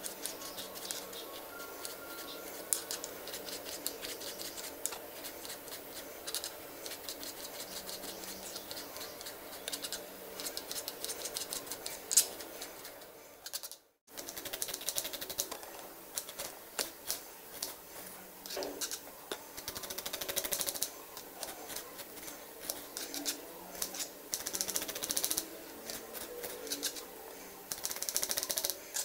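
Kitchen knife chopping tomatoes and then onion on a plastic cutting board: quick, irregular taps of the blade against the board, broken once by a short silence about halfway through.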